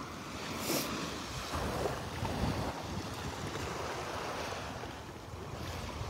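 Gulf of Mexico surf washing up the beach, a steady hiss of water, with wind rumbling on the microphone.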